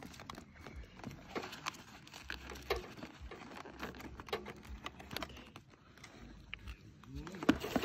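Disposable aluminium foil tray crinkling and clicking as it is handled, then set down on a grill's wire grate, with irregular small crackles and taps and a sharper knock near the end.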